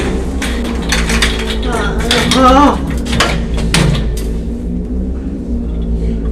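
Rapid clinks and knocks over a steady low hum, with a short wavering pitched sound about two and a half seconds in.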